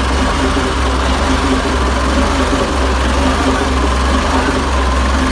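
Nissan RF10 V10 marine diesel running steadily, heard up close.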